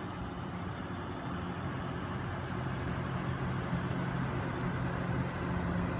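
Noctua NH-D15 CPU cooler fans and case fans running in push configuration: a steady whoosh of air turbulence over a low hum, nice and quiet, without the buzzing heard in pull configuration.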